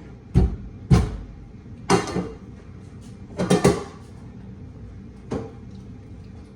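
Cookware knocked and clattered about six times, sharp separate bangs with a short cluster of them a little past halfway, as boiled noodles are strained and tapped out to get the last of them.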